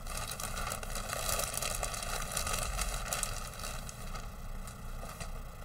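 Clear plastic bag crinkling and rustling as it is handled, with hard plastic model-kit sprues shifting inside.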